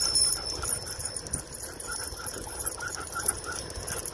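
Brittany dog running beside a bicycle and panting quickly, about five breaths a second, clearest in the second half, over wind rumble on the microphone.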